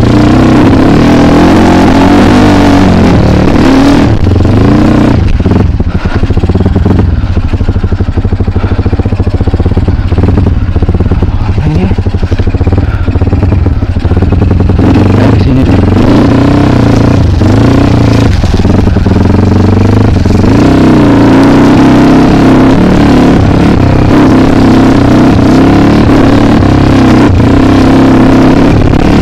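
Kawasaki KLX trail motorcycle's engine running loud and close while being ridden off-road, revving up and down with the throttle. It eases off for a stretch about a third of the way through, with some clattering, then pulls strongly again.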